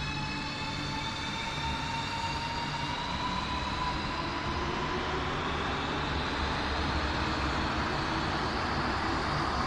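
Renfe Cercanías electric commuter train pulling out of an underground station. Its traction motors whine with several tones that rise slowly as it accelerates, under a growing rumble of wheels on rails.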